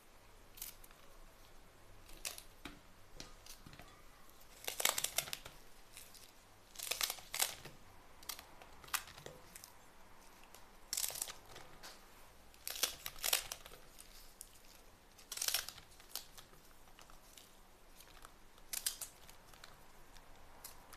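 Fresh long green peppers being cut into pieces with a small paring knife: crisp snapping crunches come in short clusters every second or two.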